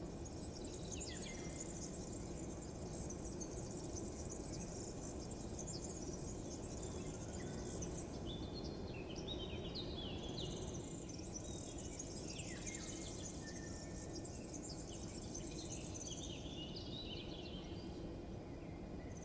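Outdoor morning ambience: small birds chirping and twittering in quick high runs of short falling notes, over a steady low background rumble.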